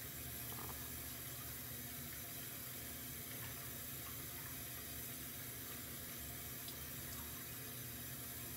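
Hot-water tap running steadily into a bathroom sink.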